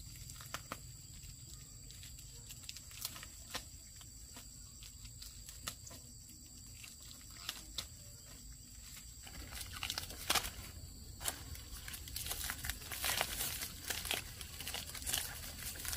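Rustling and crackling of dry leaves and stalks being handled: scattered snaps at first, becoming busier from about ten seconds in.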